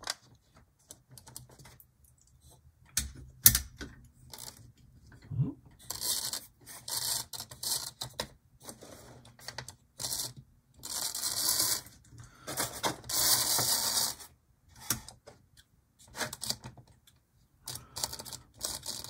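HO-scale Lifelike F7A chassis with a pancake motor running on the track in short spurts of whirring, each about a second long, cutting in and out between clicks and clatter of the model being handled. The owner puts the stalling down to poor electrical pickup.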